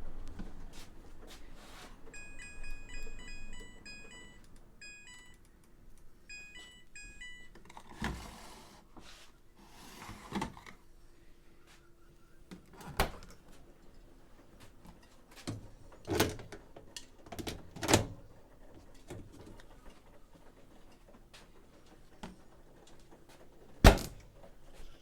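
Electronic beeps from a washer-dryer's control panel: short high tones in quick patterns, like button presses and a start tune. They are followed by scattered knocks and thunks, the loudest near the end.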